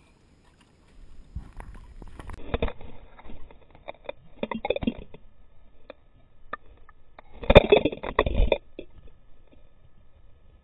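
Muffled water sloshing and splashing around a camera housing as it is dunked and held under the sea surface. Three louder bursts come about two, five and eight seconds in, the last the loudest.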